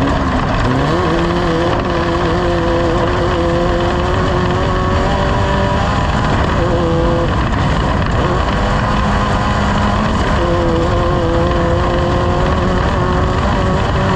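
Racing boat engine running hard, its pitch climbing and then holding, cutting out briefly twice before returning, over a loud steady rush of noise.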